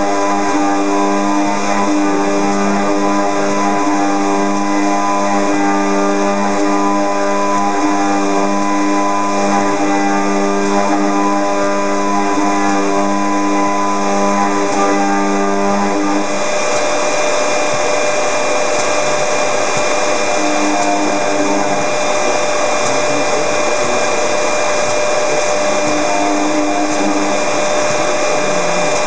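Robot-mounted FIMEC milling spindle cutting aluminium: a steady whine with several tones over a hissing cutting noise. About halfway through the lower tones mostly drop away and the hiss grows.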